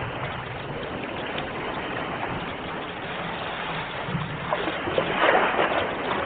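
Sea waves washing onto the shore in a steady rush, with a louder wave breaking and splashing about five seconds in.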